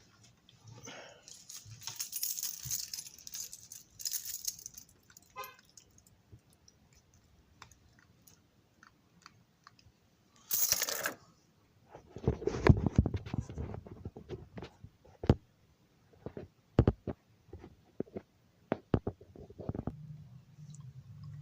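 Small hard parts being handled: a stretch of rustling and crinkling, a short scrape about halfway, then a run of sharp light clicks and knocks, with a low hum setting in near the end.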